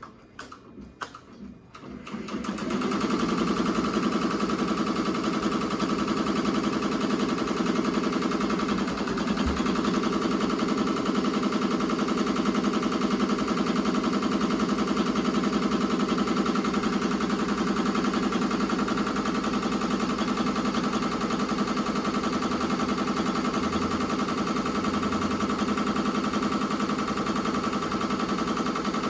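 Ricoma MT-2002-8S multi-needle embroidery machine: a few light clicks, then about two seconds in it starts stitching, a steady rapid rattle of the needle going up and down.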